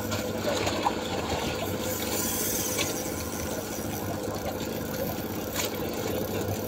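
An engine on a boat running steadily, a constant hum with many tones, with some water noise.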